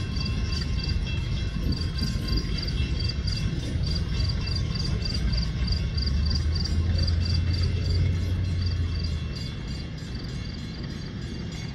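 Grade-crossing warning bell ringing steadily, about four strikes a second. Beneath it runs the low rumble of the approaching Metra diesel locomotives (MP36PH-3C and F40PH-3), which grows loudest a little past the middle and eases near the end.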